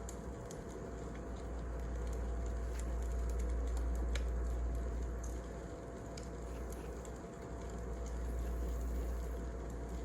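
Wood fire crackling: scattered, irregular sharp pops and snaps over a steady low rumble that slowly swells and fades.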